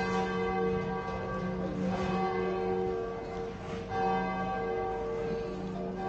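Large bells ringing together in a sustained chord of several pitches, struck afresh about every two seconds.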